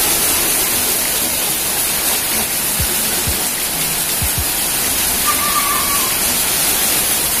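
Rain falling steadily on a wet concrete yard and its puddles: an even, dense hiss.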